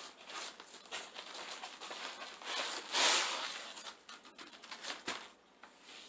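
Styrofoam packaging and a cloth sword bag rustling and rubbing as a bagged katana is pulled out of its foam-lined box, with scattered small clicks and a louder swish about three seconds in.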